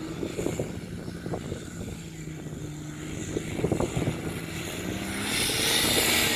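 Jeep Wrangler TJ engine running steadily while driving in sand, with scattered knocks; about five seconds in, a loud rushing noise builds up.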